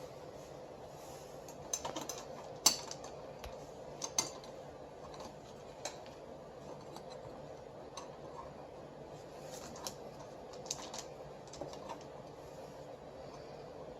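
Irregular small clicks and light metallic taps from the parts of a copier fuser unit being handled and worked on by hand, the loudest about three seconds in, over a faint steady hum.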